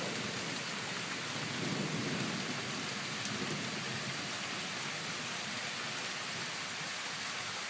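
Rain falling steadily throughout, with a low rumble of thunder swelling briefly about a second and a half in.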